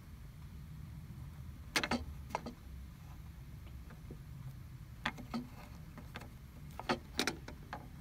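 Small clicks and scrapes of a plastic cable gland and its rubber seal insert being handled and turned between fingers, in two short clusters, over a low steady hum.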